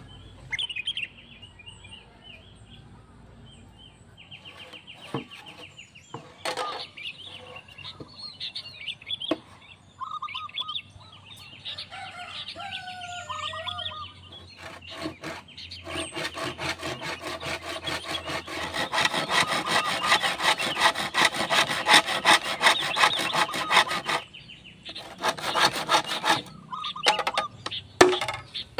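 Birds chirping, then a handsaw cutting through a bamboo pole in quick back-and-forth strokes for about eight seconds, a short pause, and a second shorter bout of sawing.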